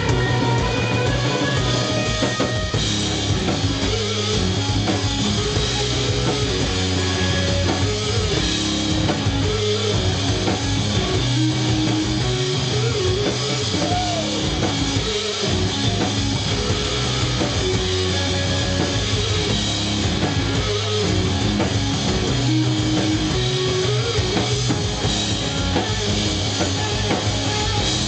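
Live rock band playing without a break: electric guitar, bass and drum kit.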